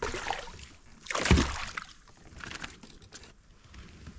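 A hooked bass thrashing and splashing at the surface beside a kayak as it is landed, the loudest splash about a second in. Quieter sloshing and a few small knocks follow.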